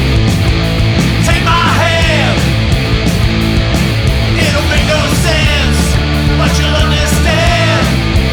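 Loud punk rock song with a dense band mix and a steady beat of regular drum hits. A melodic line that bends in pitch comes in about three times, near two seconds, around five seconds and near seven and a half seconds.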